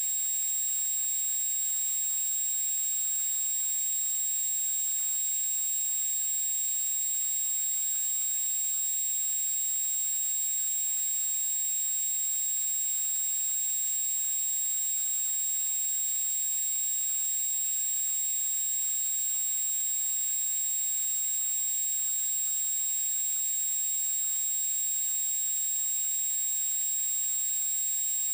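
A steady high-pitched whine, unchanging throughout, over a faint even hiss.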